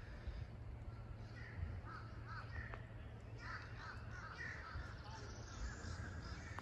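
Birds in the riverside trees giving a run of short calls, faint.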